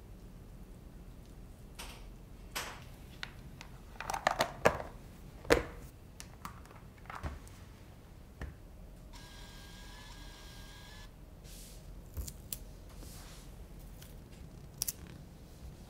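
Plastic food-storage containers being handled and their lids pressed shut: scattered sharp plastic clicks and knocks, the loudest cluster about four to six seconds in, with a few more later.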